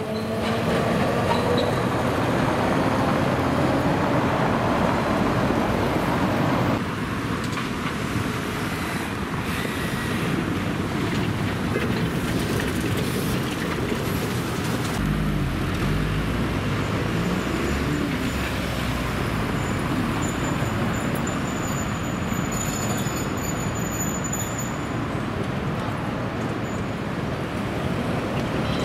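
Street traffic and electric street transit heard in turn: first a 1920s Peter Witt tram running along street track, then trolleybuses and road traffic. The sound changes abruptly a few seconds in, and a deeper low rumble sets in about halfway.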